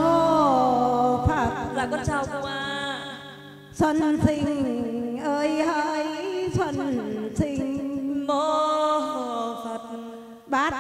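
A woman singing a mournful lament through a microphone and loudspeakers over a steady instrumental accompaniment, her melody sliding and wavering in long phrases with short breaks about four seconds in and near the end.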